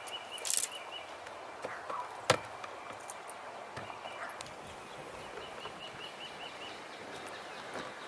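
Outdoor ambience: a steady hiss, with a bird repeating short high chirps in quick runs, and one sharp click a little over two seconds in.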